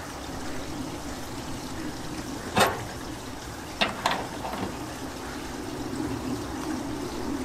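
Click-type torque wrench with a crowfoot adapter tightening the small brass flare nut on a mini-split condenser's service valve. One sharp metallic click about two and a half seconds in, the wrench breaking at its set torque, then two lighter clicks about a second later. A steady background hiss runs under the clicks.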